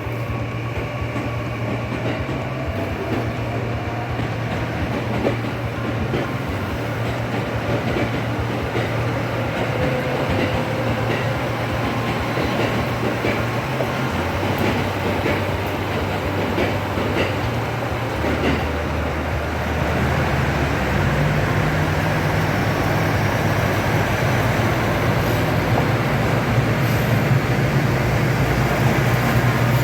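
KiHa 85 series diesel railcar running, with a steady diesel engine drone and the rumble of wheels on rail. About two-thirds of the way in the engine note steps up and grows louder, as under more power.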